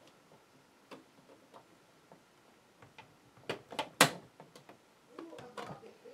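Scattered sharp clicks and scrapes of metal tweezers prying at a plastic laptop screen bezel, with the loudest click about four seconds in and a busier stretch of scraping near the end.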